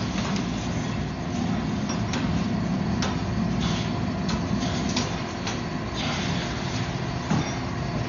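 Forging shop equipment running with a steady roar and low hum, with scattered light clicks and a louder knock about seven seconds in.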